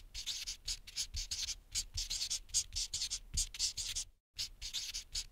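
Marker pen writing, its tip scratching across the surface in quick short strokes, several a second, with a brief pause about four seconds in.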